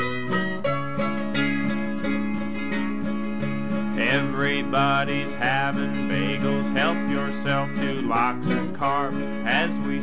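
Acoustic country string-band music: plucked guitar chords with a steady rhythm, joined about four seconds in by a higher melody of sliding, wavering notes.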